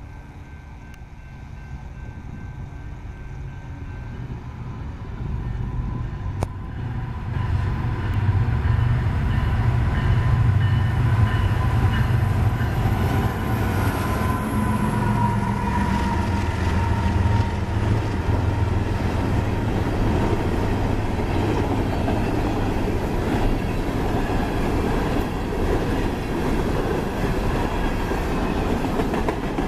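Two diesel-electric freight locomotives, an EMD SD70ACe leading and a GE ES44AC trailing, approach and pass close by, their engines growing louder over the first several seconds. Then a string of empty steel coal hoppers rolls past with steady wheel-on-rail noise.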